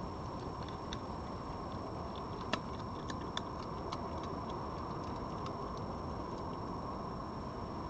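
Red fox crunching dry food from a plate: a run of short, sharp clicks and crunches, the loudest about two and a half seconds in, over a steady background hiss.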